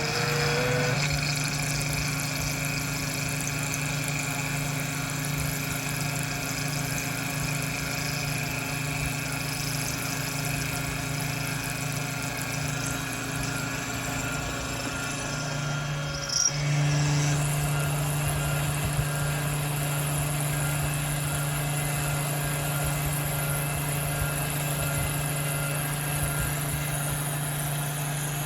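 Taig CNC mill at work on a block of 6061 aluminum: its 1/4 HP spindle, set to 2900 rpm, runs with a steady hum and whine while a three-flute end mill cuts. About 16 seconds in there is a brief break, and the tone then settles slightly changed.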